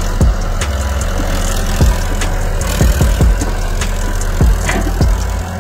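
Diesel engine of an old KATO hydraulic excavator running steadily, with irregular sharp knocks over it.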